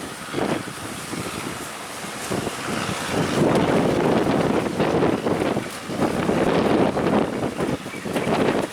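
Strong wind buffeting the microphone in uneven gusts, a rough rushing noise that grows louder about three seconds in.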